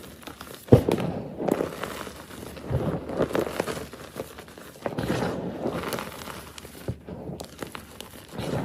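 A fresh block of soft gym chalk being crushed, giving a run of uneven crunches and crumbling crackles, with one sharp loud crack just under a second in.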